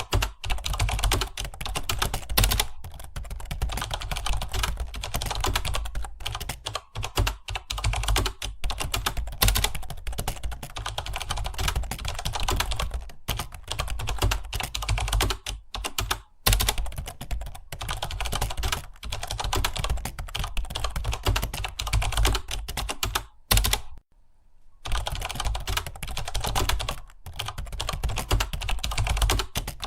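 Computer keyboard being typed on quickly and continuously, a dense run of key clicks with brief pauses, the longest about 24 seconds in.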